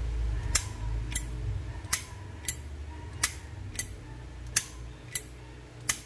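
Thick-walled brass Zippo Armor lighter's lid being flicked open and snapped shut over and over, giving about nine sharp metallic clicks a little under a second apart. The click is softer than that of a standard thin-case Zippo, as the owner judges it.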